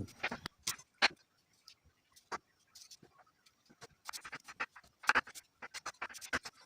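Thin slices of apple and pear being put into a soup pot: scattered light clicks and knocks at irregular intervals, busiest about four seconds in and again near the end.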